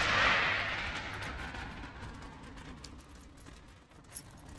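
A car passing by, its tyre and road noise swelling at the start and then fading away over a few seconds.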